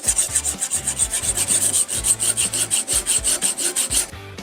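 Sharpening stone on a guided-angle sharpener scraping rapidly back and forth along a steel scissor blade, about ten short strokes a second, stopping abruptly near the end.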